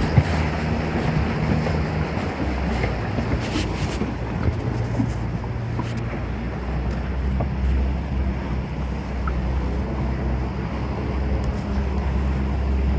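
A boat's engine running with a steady low hum, its note shifting slightly a few times, under wind rushing on the microphone and water noise.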